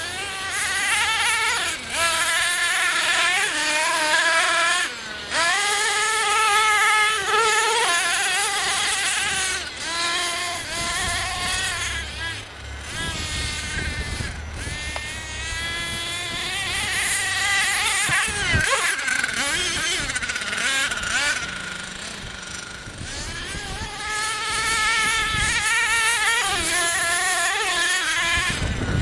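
Team Associated MGT RC monster truck's small nitro engine revving up and down as it drives, its pitch rising and falling over and over. It eases off to a lower, quieter note for a few seconds past the middle, then revs hard again.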